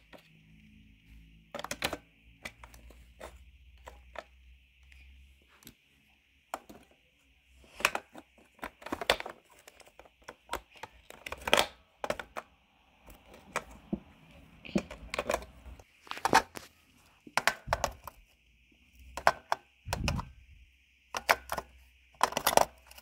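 AA batteries being pushed and snapped into a plastic Nerf blaster's battery compartment: irregular clicks and knocks of the batteries against the metal springs and plastic casing, over a faint steady hiss.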